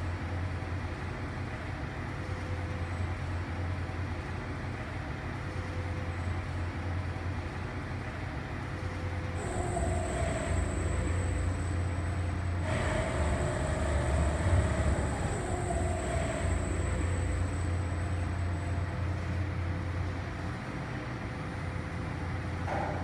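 Machinery of an automated car vending-machine tower running: a steady low rumble with a faint high whine. Higher motor tones cut in suddenly about nine seconds in and again about thirteen seconds in, then fade away.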